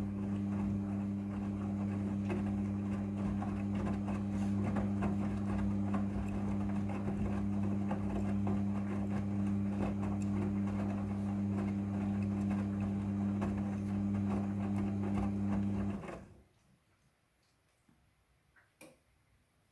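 Midea front-loading washing machine running with a steady electric hum and a busy rattling, watery texture, cutting off suddenly about sixteen seconds in. After that there is near silence with a few faint clicks.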